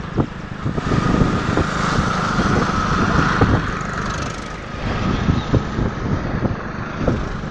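Wind buffeting the microphone over the engine and road noise of a moving motorcycle, with other traffic, a motorcycle and a tractor, passing close alongside.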